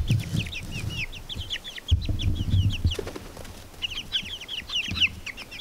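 A flock of baby chicks peeping: a rapid, unbroken run of short, high, downward-sliding peeps from several birds at once. A few low rumbles sound underneath, near the start and again about two seconds in.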